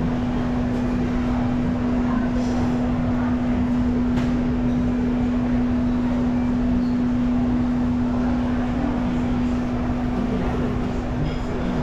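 Shopping-mall ambience: an even wash of background noise with a steady hum held on one pitch.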